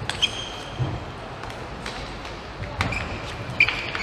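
Table tennis rally: sharp clicks of the celluloid ball off the rubber bats and table, a second or so apart, with a few short high squeaks of shoes on the court floor, the loudest near the end.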